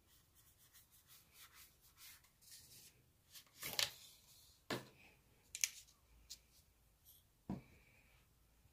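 Paintbrush bristles scratching across sketchbook paper in a run of short strokes, followed by a few light knocks and clicks, the loudest about four seconds in.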